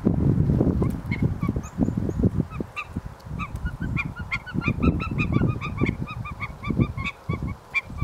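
Birds calling: a long run of short, repeated call notes from several birds, about four a second, starting about a second in. Under them, gusty wind rumbles on the microphone, louder than the calls.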